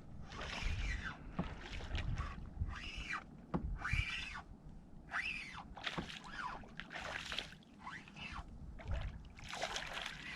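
Short water splashes, roughly one a second, beside a kayak as a hooked trout is fought to the boat.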